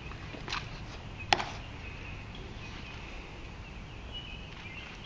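Hushed outdoor quiet with faint bird chirps, broken by a soft click and then a single sharp click a little over a second in, from the ceremonial guards' drill.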